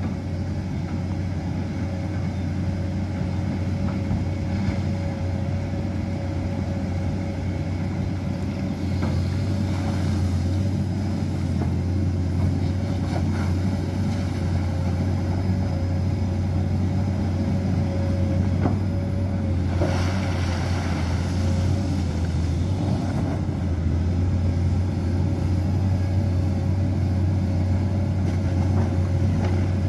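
Komatsu PC210 excavator's six-cylinder diesel engine running steadily under a very heavy load as the machine tracks through deep mud: a constant low drone with an even whine above it.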